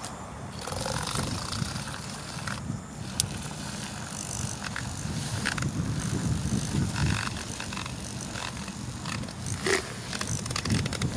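Wind buffeting the microphone outdoors, over the whir of a small battery-powered handheld milk frother spinning in a pot of warm milk to froth it. A couple of small clicks.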